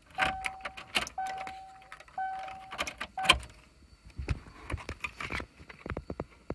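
A car key clicking and jangling in a Subaru's ignition lock, with the car's warning chime sounding three steady beeps of just under a second each in the first three seconds. Quick clicks and rattles follow near the end. The key can come out now that the shifter's park/neutral key-lock wires are jumped.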